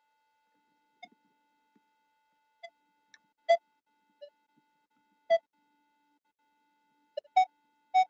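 Minelab Equinox 800 metal detector giving short target beeps as the coil sweeps the ground: clipped tones of one mid pitch, a second or two apart, coming quicker near the end, over a faint steady tone.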